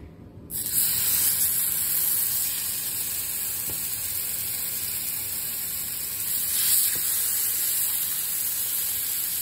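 Seasoned raw chicken cutlets sizzling in hot olive oil in a frying pan. The sizzle starts suddenly about a second in as the first cutlet goes in, then holds steady and swells briefly about two-thirds of the way through as a second cutlet is laid in.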